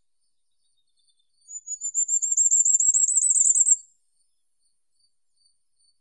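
Firecrest singing: one thin, very high-pitched song of rapid repeated notes, rising slightly in pitch and growing louder over about two seconds before stopping.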